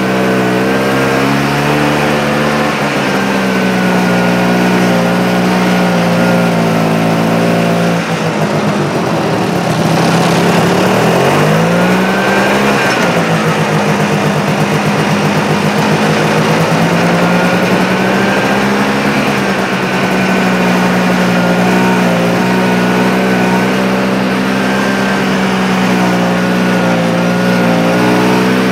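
Snowmobile engine running steadily while riding along a snow trail. Its pitch dips and climbs back up about ten to thirteen seconds in, and shifts again near the end.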